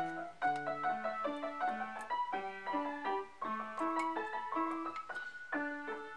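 Background keyboard music: a melody of quick, evenly paced struck notes over simple chords.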